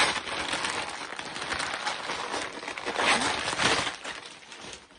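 Gift wrapping paper rustling and crackling as a present is unwrapped by hand. It is loudest a little past the middle and dies down near the end.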